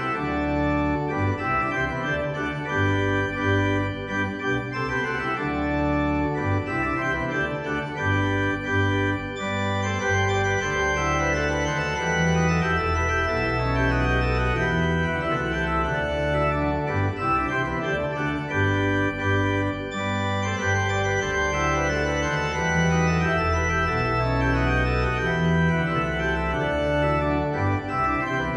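Instrumental background music: sustained chords over a bass line that steps from note to note every second or so.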